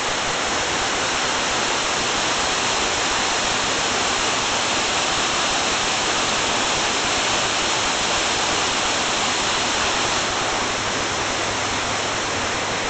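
Steady rush and splash of a small woodland waterfall spilling over rock ledges into a shallow pool, running full after heavy rain.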